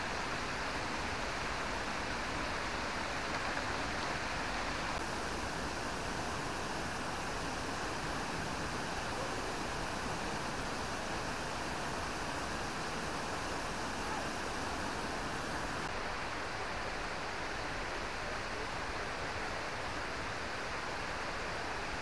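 Steady, unbroken rush of running water from the river and waterfall below the path.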